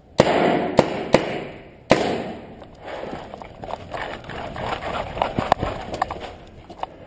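Four sharp cracks of paintball fire in the first two seconds, each leaving a short ringing smear. Then quick running footsteps on dirt with a light ticking and rustle of gear.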